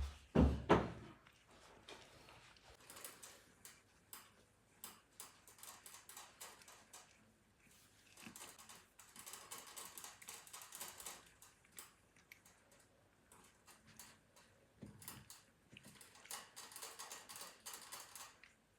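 A sharp knock within the first second, then scattered light clicks and soft rustling.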